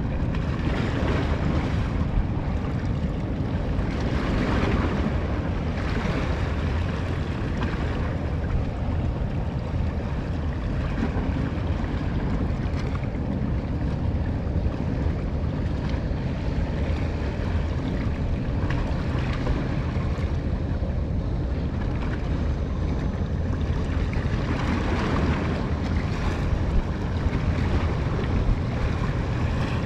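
Wind buffeting the microphone over open water, with waves washing and a steady low rumble underneath. Gusts swell a few seconds in and again near the end.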